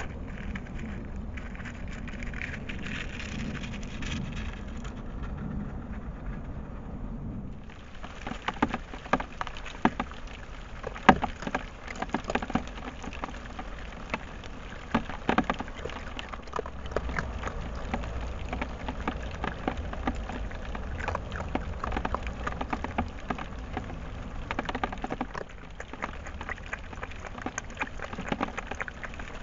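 Trail-camera microphone picking up a steady low hum and hiss at first. About eight seconds in it cuts to irregular, dense crunching clicks as a red fox eats from the feeding-station food bowls.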